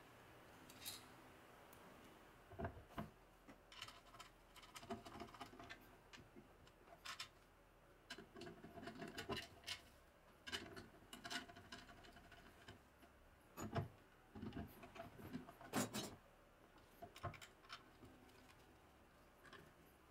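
Faint, scattered metal clicks, taps and scrapes of bolts and an Allen key being handled and turned while an electric motor is bolted to a steel mounting plate, with a few sharper knocks in the second half.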